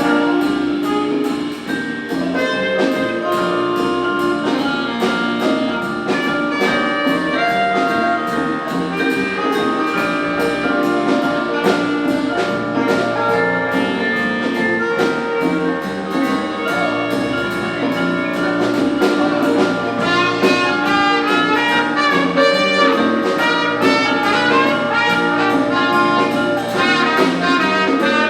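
Live jazz big band playing, with trumpets, trombones and saxophones over a steady beat.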